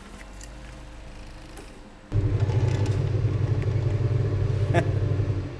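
A motor running steadily with a low, fluttering rumble. It starts abruptly about two seconds in, after a quiet low hum, and cuts off suddenly at the end.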